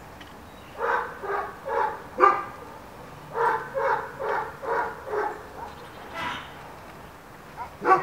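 A dog barking in quick runs, about two barks a second: four barks, a short pause, five more, then a few single barks toward the end.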